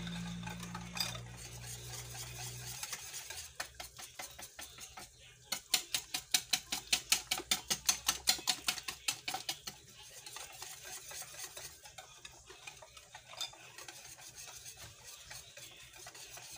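A utensil stirring thick chocolate semolina batter in a glass bowl, scraping and knocking against the sides. About a third of the way in the stirring turns into quick, even strokes, several a second, which is the loudest part, then eases back to softer scraping.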